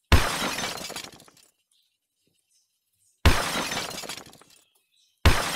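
A breaking-glass crash sound effect, played three times. Each crash starts suddenly and dies away over about a second. They come near the start, about three seconds in and near the end.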